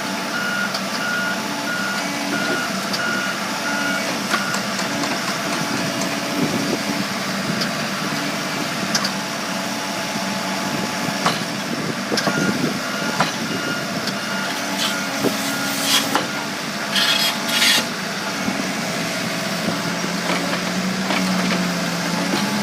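Case 580 Super N backhoe loader running, its diesel engine humming steadily while the backup alarm beeps in an even on-off pattern. A few sharp knocks and short hissing bursts come partway through, and the engine note rises near the end.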